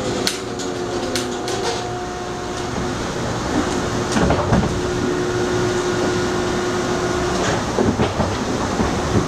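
Electric subway train running, with a continuous rumble, a steady hum through the middle, and sharp clicks and clacks, several of them near the end.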